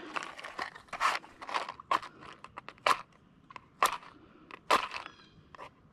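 Camp cooking gear being handled: a string of sharp, irregular clicks and knocks, roughly one or two a second.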